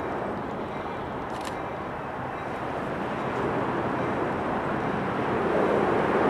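Pair of Norfolk Southern EMD GP38-2 diesel locomotives approaching slowly, their engines' steady rumble growing louder.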